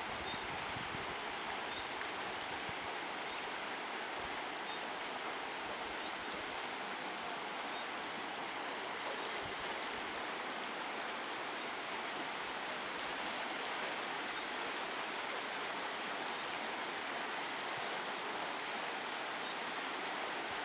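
Steady rush of river water running over a broad stretch of shallow rapids, an even, unbroken hiss.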